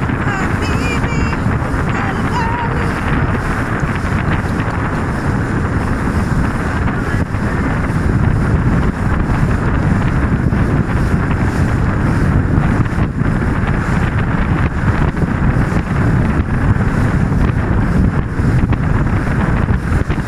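Wind buffeting the microphone on a small open motorboat under way, over the steady run of its motor and water hissing and slapping along the hull. It gets a little louder about eight seconds in.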